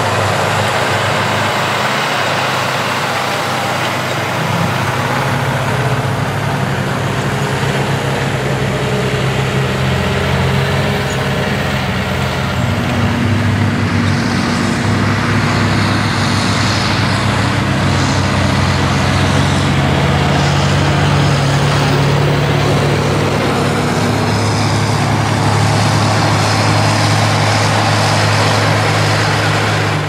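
Diesel engines of John Deere tractors running steadily under heavy load as they pull ploughs through the soil, a continuous low engine drone.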